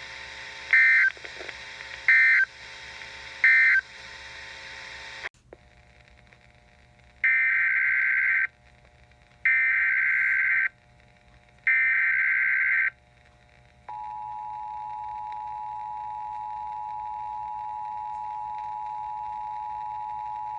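Emergency Alert System SAME data bursts and attention tone over weather radio. First come three short, harsh digital bursts, the end-of-message code closing the previous warning. After an abrupt cut, three longer bursts carry the header of a new warning. About 14 s in, a steady single-pitched attention tone begins and holds to the end.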